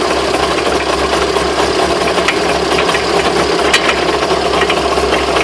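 A car running with a steady drone and scattered sharp knocks and rattles. The owner wonders whether the knocks come from bent drive shafts.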